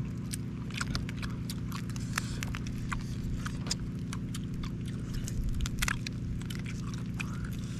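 Grilled mantis shrimp shells cracked and peeled by hand, with chewing, making an irregular run of short, sharp crackles and clicks over a steady low hum.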